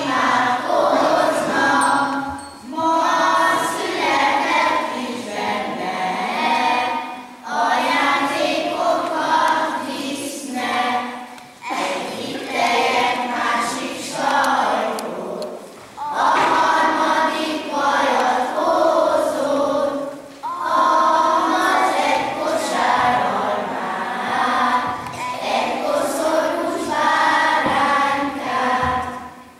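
Children's choir singing a song in lines of a few seconds each, with short breaks between the lines.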